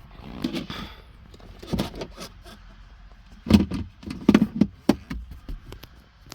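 Knocks, clatters and thumps of things being handled inside a car's interior, with the loudest thumps about three and a half and four and a half seconds in.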